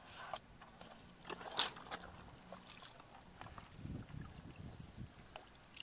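Small splashes and sloshes of water with scattered clicks and knocks, the loudest a sharp splash about a second and a half in, from a plastic basin of live fish and shallow paddy water being handled.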